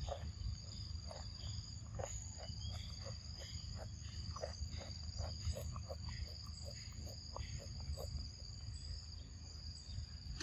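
A macaque chewing a green fruit: a string of short, crisp crunching clicks, two or three a second. Behind it runs a steady high insect drone.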